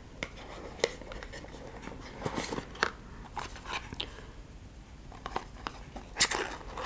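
Cardboard being handled: scattered clicks, scrapes and crinkly rustles as a small cardboard box is pulled out of an advent calendar compartment and its flaps are worked open. The loudest rustle comes about six seconds in.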